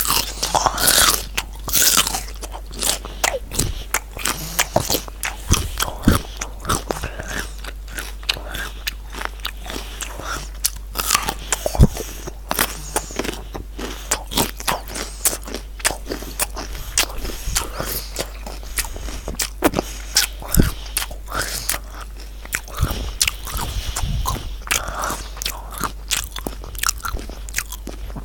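Close-miked biting and chewing of crunchy raw vegetables: a dense, continuous run of crisp crunches and crackles, with a few sharper, louder cracks.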